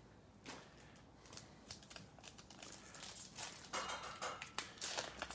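Plastic wrapper of a basketball trading card pack crinkling and crackling in the hands as it is opened, faint at first and denser about three and a half seconds in.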